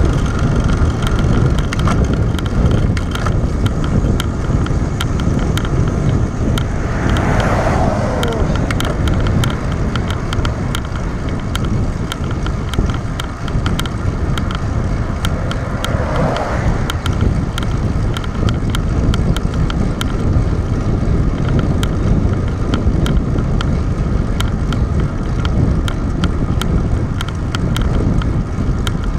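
Steady rush of wind and tyre noise from a road bicycle riding at speed on asphalt, picked up by a bike-mounted action camera, with frequent small ticks throughout.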